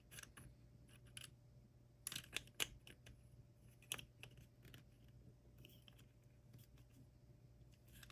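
Faint, scattered clicks and taps of small cheap plastic parts of a pumpkin carver being handled and fitted together, with a quick cluster about two seconds in, over a faint steady low hum.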